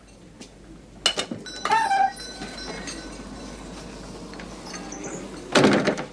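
A tearoom door opening: a click of the latch, a short creak and a small shop bell ringing. Near the end comes a loud thud.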